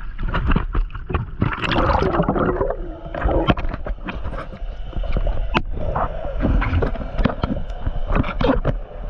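Water splashing and gurgling close to the microphone as a diver swims across the surface of a lake, with many irregular splashes.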